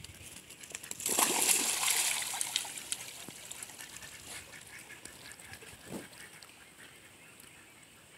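Ducks splashing into a pond about a second in, with quacking, the splashing of the ducks and a swimming herding dog fading over the next few seconds. A single dull knock about six seconds in.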